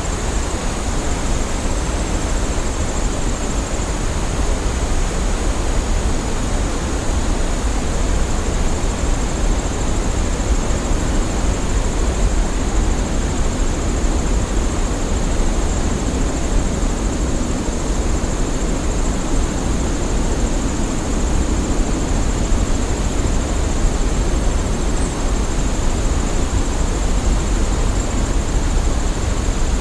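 Waterfall rushing with a steady, deep, unbroken roar of falling water, with a faint thin high hiss held at one pitch above it.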